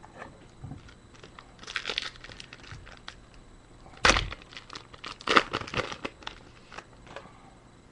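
A trading-card pack's wrapper being crinkled and torn open by hand. There is a sharp tear about four seconds in, with bouts of crinkling rustle before and after it.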